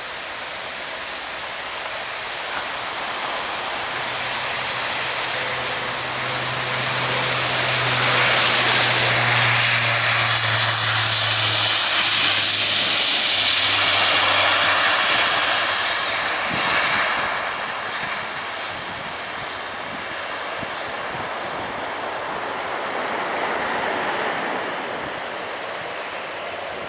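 An aircraft passing low overhead. Its engine noise swells to a loud rush about 8 seconds in, holds, then fades away after about 16 seconds.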